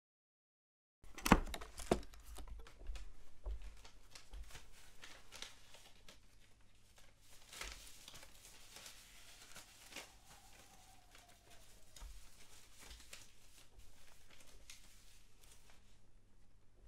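Live foley performed to picture. Two sharp knocks about a second in, then scattered soft clicks and rustling of cloth and paper, with a faint falling squeak about ten seconds in.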